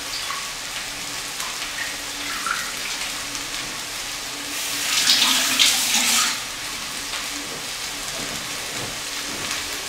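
Kitchen tap running for a second or two about halfway through, over a steady sizzle of meat frying in a pan.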